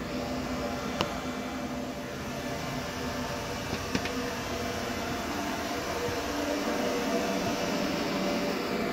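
Steady mechanical hum of ventilation inside a submarine's cramped compartments, with two short sharp clicks, about one and four seconds in.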